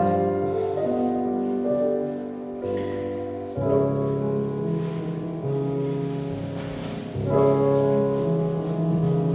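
Piano music: slow, sustained chords that change every second or so, with fresh, louder chords struck twice, about a third of the way in and again near the end.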